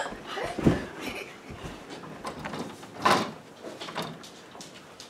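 Knocks and rustling from a glass-fronted wooden display cabinet being opened and its contents handled, with one louder knock about three seconds in.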